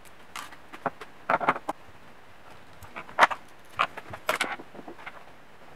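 Light clicks and rattles of small parts and tools being handled on a wooden workbench, in several short clusters, the loudest about three seconds in.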